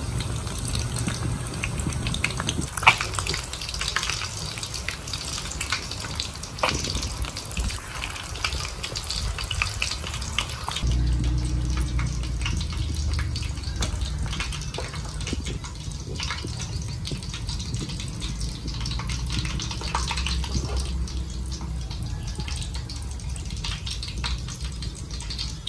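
Battered frogs deep-frying in hot oil in a wok: a steady sizzle thick with small crackles and pops. About eleven seconds in, a low steady rumble joins the sizzle.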